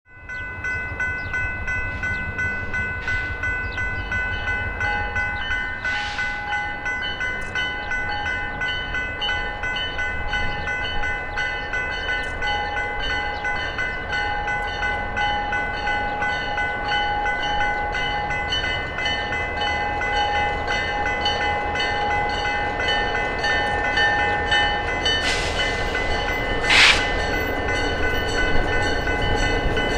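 Diesel freight train passing: a low engine rumble with steady high ringing tones running throughout. There are a few sharp clanks, the loudest near the end.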